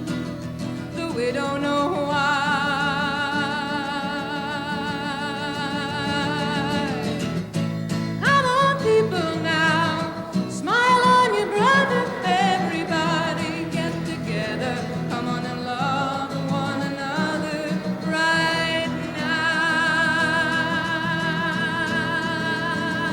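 A woman singing with acoustic guitar accompaniment, holding long notes with a wavering vibrato. Between about 8 and 12 seconds in, her voice makes several sharp yodel-like leaps upward in pitch.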